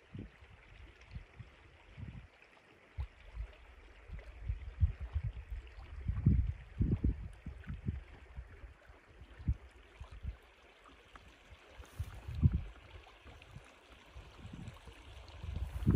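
River water running in a steady hiss, with irregular low thumps and water sloshing around a landing net that holds a large brown trout.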